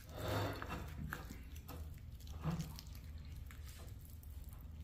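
A fork cutting into a taco on a ceramic plate: a short rustle near the start, then a few faint clicks and scrapes over a low room hum.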